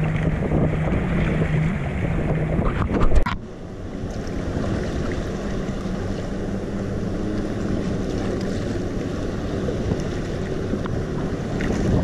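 Wind on the microphone and choppy sea water sloshing around a kayak. For the first three seconds a steady engine drone from jet skis runs under it; the sound cuts off abruptly about three seconds in, leaving wind and water.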